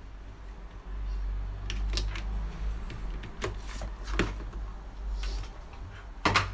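About five sharp clicks and knocks as a heat gun is handled and switched on, over a low rumble that starts about a second in; the loudest click comes near the end.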